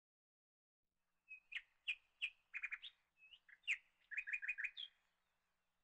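A small bird chirping: a string of short, sharp chirps with a quick run of repeated notes, ending on one rising note.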